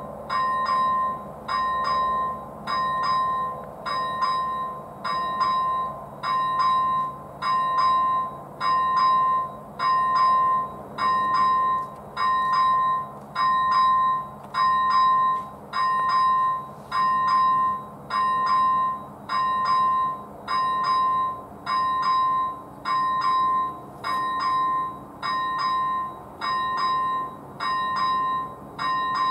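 ZV-01 electronic bell on AŽD 71 level-crossing warning lights ringing in short even bursts, about one a second, each a quick double strike: the crossing's warning that a train is approaching.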